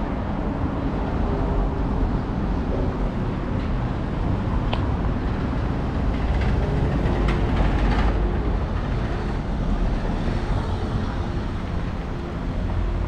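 City street traffic: vehicles passing with a steady low rumble, and a few light clicks around the middle.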